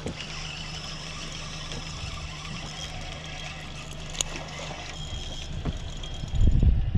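Suzuki 90 outboard motor idling with a steady low hum. About a second before the end, louder irregular low rumbles come in over it.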